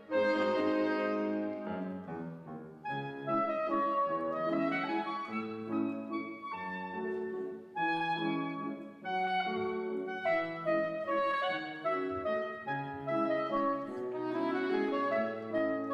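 Soprano and tenor saxophones playing a waltz melody over piano accompaniment, live.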